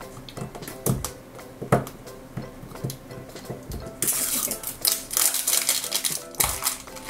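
Small plastic toy trash can being handled: a few clicks and knocks of its plastic lid, then from about four seconds in the crinkling of the clear cellophane wrapper being peeled off. Soft background music runs underneath.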